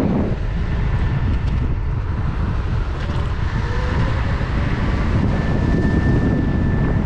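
Kaabo Wolf King GT electric scooter riding at speed on asphalt, dominated by wind buffeting the microphone, with tyre rumble and a thin steady whine from the hub motors, clearest near the end.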